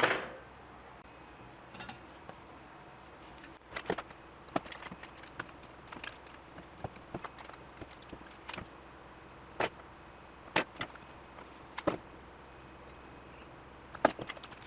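Irregular light metallic clicks and taps from hand tools and small parts being handled on a mini PC's motherboard during battery removal.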